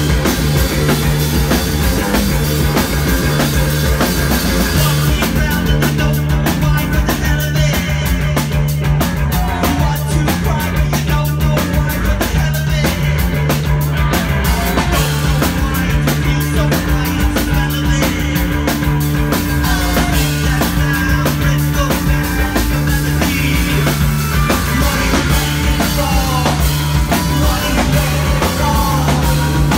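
Live rock band playing loud: a driving drum kit beat with electric guitars and bass.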